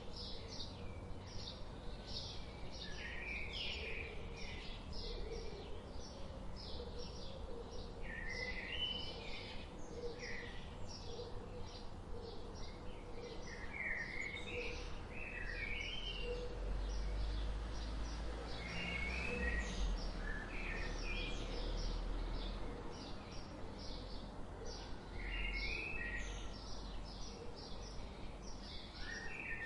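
Songbirds chirping and singing: a steady run of short high chirps, about two a second, with warbling zigzag phrases between them. Under them runs a low rumble that swells in the middle.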